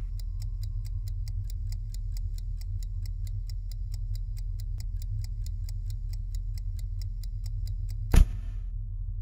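Mechanical chess clock ticking fast and evenly, about five ticks a second, over a low steady drone. Near the end a single loud hit cuts the ticking off.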